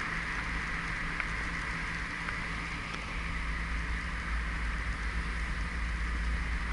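Car driving steadily along a country lane: a constant low rumble of engine and tyre noise with a steady hiss, getting slightly louder after about three seconds.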